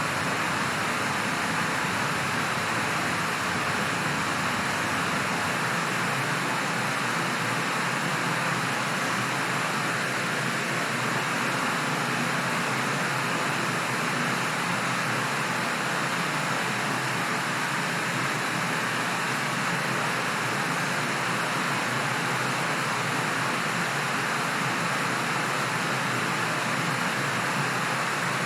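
Steady rushing air, an even hiss that holds the same level throughout with no change or break.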